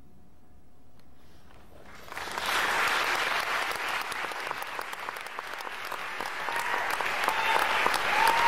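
A low, steady background for about two seconds, then an audience breaks into applause that swells towards the end, with a few short high calls over it.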